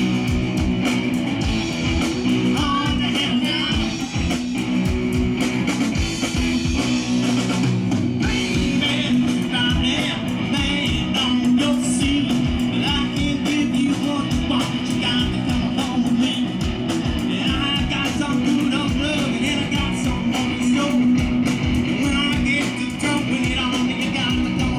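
Live rock band playing through a PA: electric guitars, bass and a steady drum beat, with a male lead vocal.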